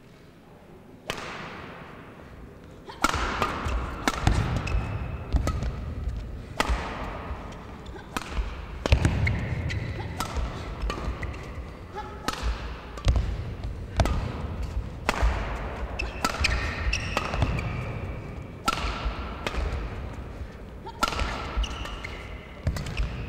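Badminton rally: rackets striking the shuttlecock at intervals of one to two seconds, starting with the serve about a second in, with players' footfalls and short shoe squeaks on the court mat between strokes.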